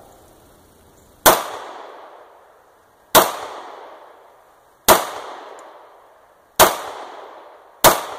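Hi-Point C9 9mm pistol firing five shots of steel-cased ammunition at uneven intervals of one to two seconds, each crack followed by a short echo. It is a test fire after a factory repair for failures to extract.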